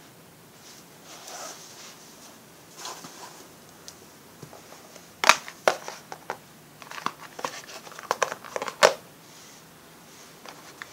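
Packaging crinkling and rustling as it is handled, with a run of sharp clicks and crackles in the second half.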